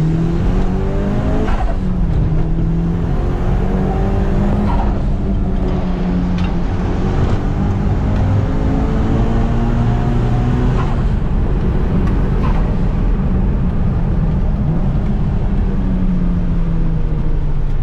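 Mitsubishi Lancer Evolution V's turbocharged 4G63 four-cylinder heard from inside the cabin, accelerating hard through the gears: the engine note climbs, drops at each upshift and climbs again several times, with a brief sharp sound at some of the shifts.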